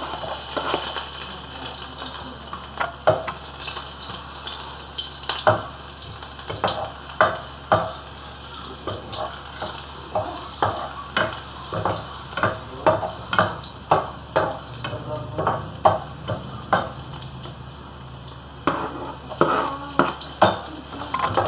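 Chopped ingredients frying in a saucepan, a steady sizzle under repeated sharp clinks and scrapes of a metal spoon stirring against the pan. Near the end a quicker clatter as more food is scraped off a plastic cutting board into the pan.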